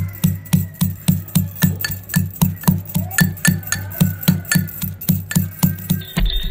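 Metal pestle pounding grated dry coconut and garlic in a steel mortar, a steady rhythm of about four dull strikes a second, grinding the coconut fine for chutney.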